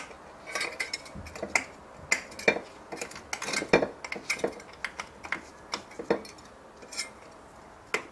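Sharp metallic clinks and taps of a small metal tool against a freshly soldered aluminum part, irregular at about two to three a second, some with a brief ring.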